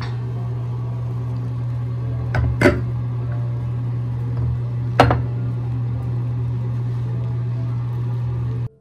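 A steady low electric hum with two sharp knocks about two and a half seconds in and a third at five seconds. The hum cuts off suddenly near the end.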